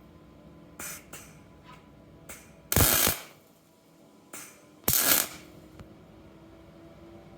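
Several short bursts of metallic clattering and scraping as metal parts are handled, two of them loud, each lasting about half a second.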